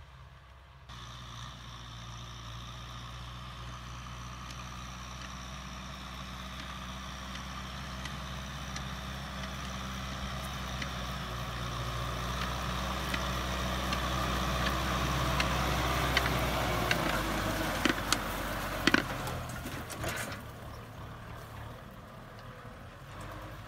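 Kubota M6040SU tractor's diesel engine running steadily under load while it pulls a disc plough through dry soil, growing louder as the tractor comes closer. A few sharp knocks and clicks come about three-quarters of the way through.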